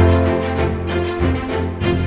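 Background music with a steady beat and sustained chords, a new chord landing at the start.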